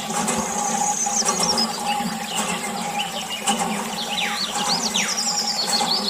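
A steady low mechanical hum, like a small motor, runs throughout. Over it come many short, quick chirps that glide up and down, like birds calling.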